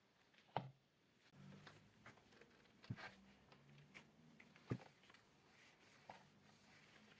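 Quiet cloth wiping and rubbing over a desk object, with three sharp light knocks as the object is handled, spaced about two seconds apart.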